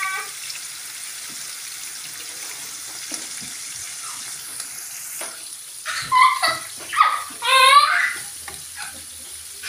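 Chopped tomatoes and garlic cloves sizzling steadily in hot oil in a nonstick pan, with a spatula stirring and clicking against the pan near the end. From about six seconds in, a voice makes a few short pitched sounds that rise and fall, louder than the sizzling.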